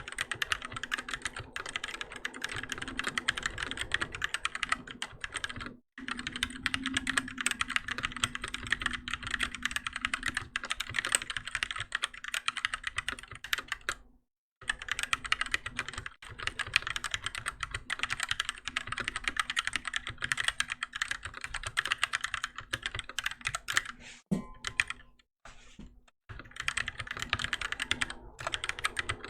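Continuous fast typing on a Keychron K6 mechanical keyboard with Gateron Red linear switches, a dense stream of key clacks with brief pauses about six and fourteen seconds in and a longer pause about twenty-five seconds in.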